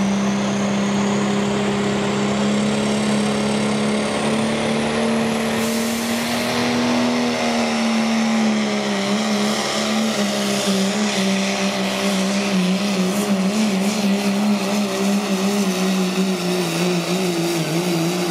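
Diesel pickup truck pulling a sled at full throttle, its engine held at a high, steady pitch that climbs slightly at first and then wavers unevenly from about halfway through. A faint high whistle rises over the first few seconds.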